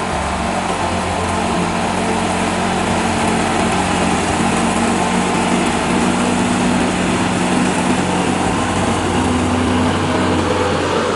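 A motor running steadily with a loud, even drone and no change in speed.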